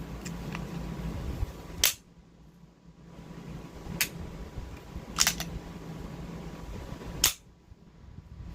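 Springfield XD9 9mm pistol making four sharp snaps, spaced a second or two apart; the third is a quick double.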